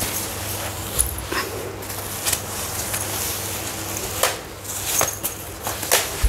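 Pop-up mosquito net's soft mesh and sprung hoop frame rustling and swishing as it is twisted and folded down by hand, in about half a dozen short brushes over a steady low hum.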